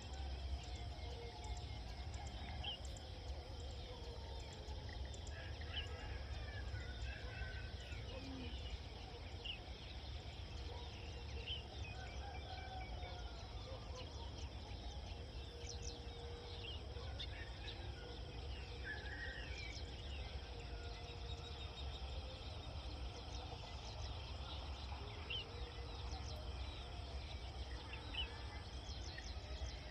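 Rural outdoor ambience: a steady low rumble under scattered short bird chirps and calls, with a steady high hiss above.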